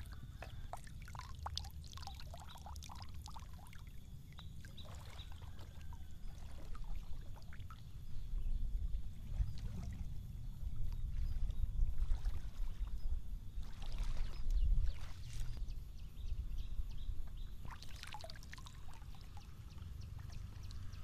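Water sloshing and trickling around a wading angler, with scattered small splashes and clicks over a low rumble that grows louder about eight seconds in.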